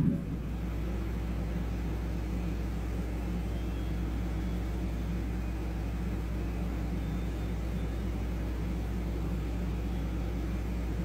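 A steady low hum and rumble that stays even throughout, with no distinct knocks or calls.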